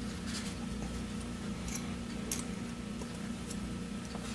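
A few light clicks as a small metal constricting nozzle is fitted onto a hot air rework station's handpiece, over a steady low hum.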